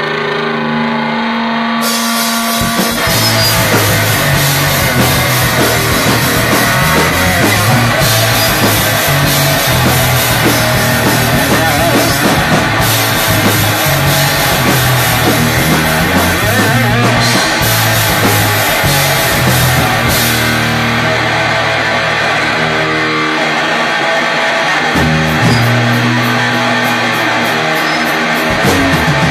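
Rock band playing fast, loud speed rock with distorted guitar, bass and drum kit. A few held notes open it, and the full band comes in about two seconds in.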